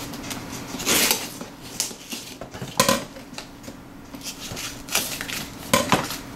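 A knife blade slitting and scraping along the taped top flap of a cardboard box, with a longer scrape about a second in and scattered clicks and taps of the blade on the cardboard.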